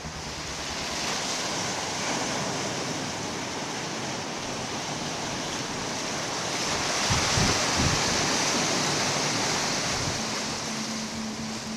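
Sea surf breaking on a rocky shore: a continuous rush of foaming water that swells to a heavy crash of a breaking wave about seven seconds in.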